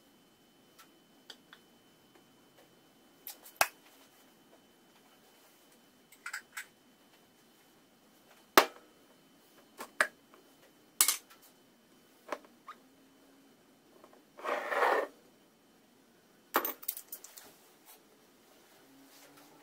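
Scattered sharp clicks and knocks of hands handling a jar of bockwurst, twisting it open, and setting food on a plate, with one short hiss about three-quarters of the way through.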